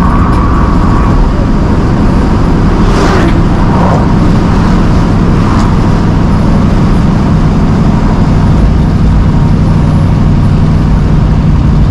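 1965 Ford Mustang Fastback driving, heard from inside the cabin: steady engine and road noise, with a brief hiss about three seconds in.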